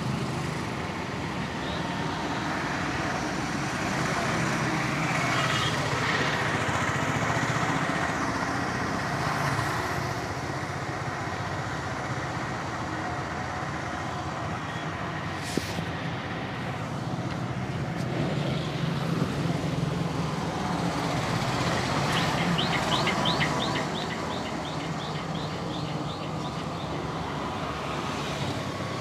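Steady street traffic noise of road vehicles passing, swelling and easing, with a quick run of high ticks about 22 seconds in.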